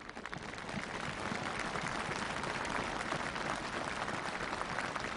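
Large crowd applauding. It swells over the first couple of seconds and then holds steady.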